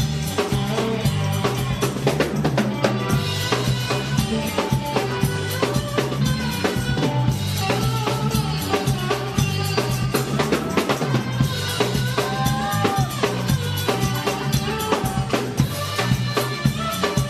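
Live band playing an upbeat funk-reggae-ska song without vocals, the drum kit prominent over a moving bass line, with pitched instrument lines above.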